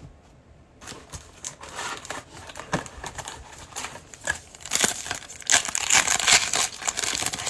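Plastic wrapper of a Prizm football card pack crinkling as it is torn open by hand: a dense run of crackles starting about a second in, loudest past the middle.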